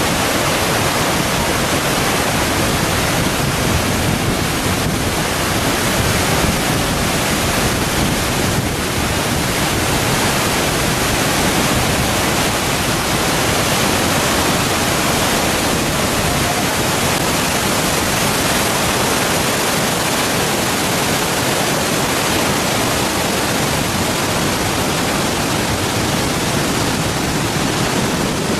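Thoseghar waterfall: loud, steady rush of falling water.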